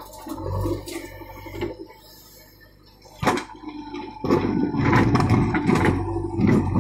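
JCB 3DX backhoe loader working, its engine running with a steady whine, as the backhoe bucket digs into dry, stony soil. From about four seconds in the sound turns much louder and rougher as the bucket scrapes and crunches through the earth.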